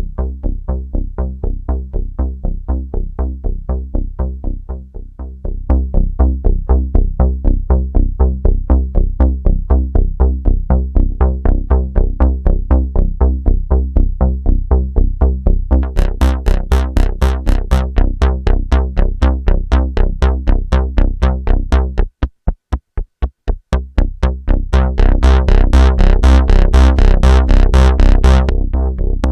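Roland Juno-106 analog polysynth playing a fast, repeating bass-heavy pattern of pulsing notes. The sound turns brighter about halfway through as the preset is tweaked. Near the end the low end drops out for a couple of seconds, leaving only thin clicking pulses, then comes back louder and fuller.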